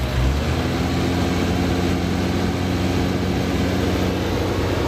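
Transit mixer truck's diesel engine idling steadily, heard from inside the cab, just after a start while the air-brake pressure builds up.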